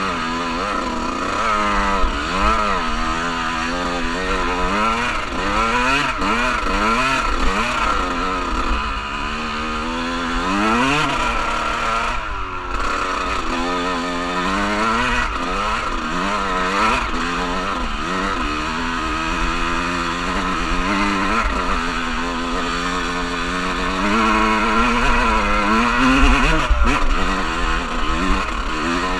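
Off-road vehicle engines of ATVs and dirt bikes, revving up and down over and over through the gears, with more than one engine heard at once at times, over a steady low rumble.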